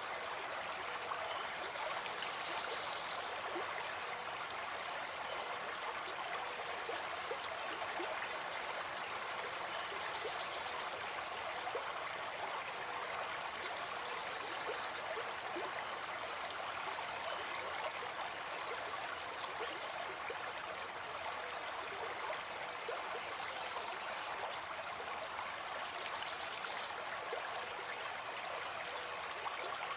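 Forest stream flowing steadily: a constant rush of running water flecked with small splashes and gurgles.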